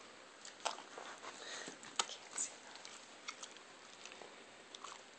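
Giant Schnauzer chewing and smacking on a gummy candy: a handful of short, scattered mouth clicks from her jaws and lips.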